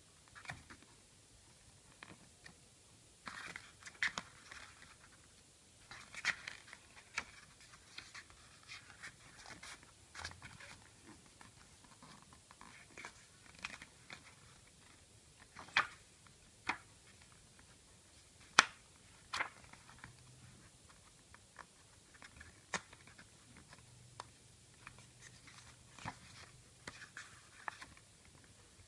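Album packaging handled by hand: scattered rustles of paper and plastic with taps and clicks, one sharp click about two-thirds of the way through.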